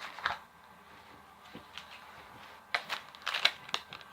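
Hands handling a chilled coconut-drink container and its paper label: a click just after the start, then a quick run of small clicks and crinkles about three seconds in.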